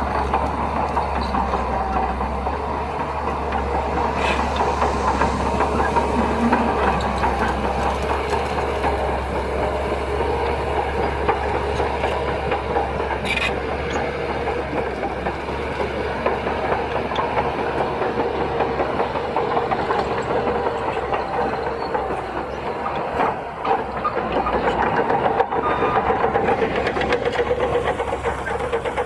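Crawler bulldozer at work: its diesel engine runs steadily under load over the clatter of its steel tracks.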